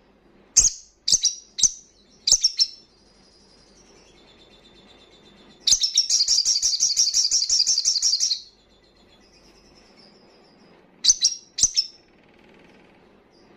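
Male olive-backed sunbird (sogon) singing in wild style: a few sharp, high chirps, then a fast, high trill of about two and a half seconds, then two more chirps.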